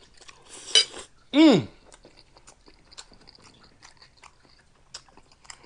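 Close-miked chewing and mouth sounds of a person eating meatballs in gravy with rice: soft wet clicks and smacks. About a second and a half in comes a short vocal 'mm' falling in pitch, the loudest sound.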